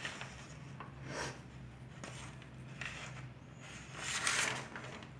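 Soft rubbing and scraping of plastic containers being handled, a few brief rustles with the loudest about four seconds in.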